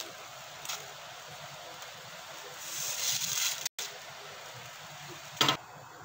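Pot of water boiling with noodles in it: a steady bubbling hiss that swells for about a second midway, with a short sharp knock near the end.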